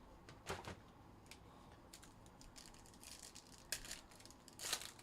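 Trading cards and plastic card holders being handled: a few short scraping rustles, the loudest near the end, with light clicks in between.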